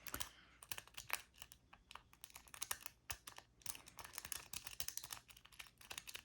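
A 4-bump rake being scrubbed in and out of a pin-tumbler door lock cylinder under light tension: rapid, irregular light metallic clicking of the pins, several clicks a second.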